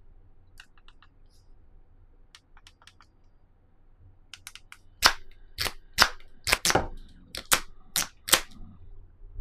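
Handling of a headphone box and its packaging: faint small clicks, then about halfway through a run of about nine loud, sharp clicks or snaps in quick succession over some three and a half seconds.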